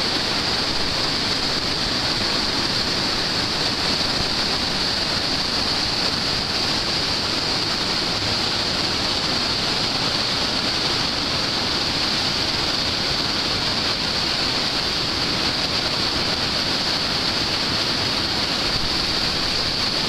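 Whitewater rapid: a river pouring through a heavy stretch of standing waves and holes in a steady, unbroken rush of water.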